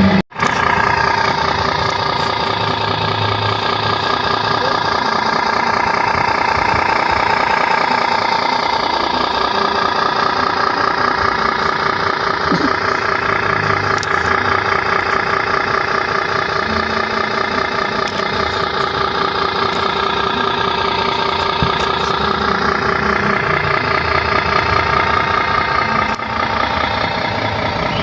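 Steady engine idle of a miniature RC bus or truck, running evenly after a very brief cut right at the start.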